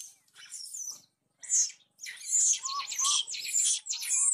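Shrill, high-pitched animal chirps and squeals in quick succession, getting louder about halfway through.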